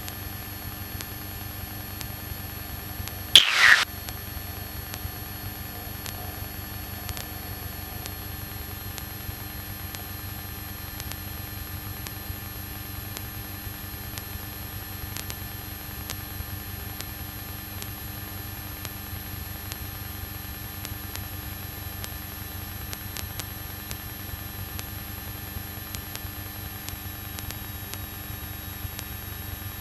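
Light aircraft in flight heard from inside the cockpit: a steady noisy drone of engine and airflow, strongest low down, with a low hum. About three seconds in, a brief loud sweep falls in pitch over about half a second.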